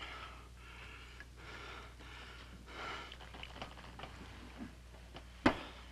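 A man breathing heavily, several audible breaths about a second apart, over a low steady hum. A single sharp knock near the end is the loudest sound.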